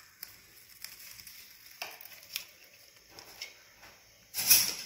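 Faint ticks and light scrapes of a table knife against Oreo biscuits as the cream filling is scraped off, then a louder crackling rustle near the end.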